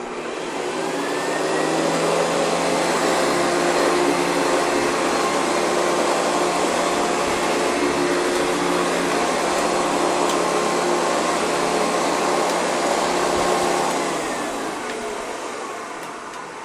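Hoover convertible upright vacuum cleaner switched on, its motor speeding up over a couple of seconds to a steady, loud run with a hum of several steady tones while it cleans dirt off a carpet. It is switched off near the end and winds down.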